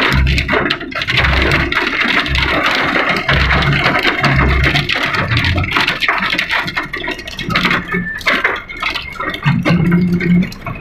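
Heavy rain and hail hitting a car, heard from inside: a dense hiss with many sharp ticks. There are low thumps about once a second in the first half, and a low hum near the end.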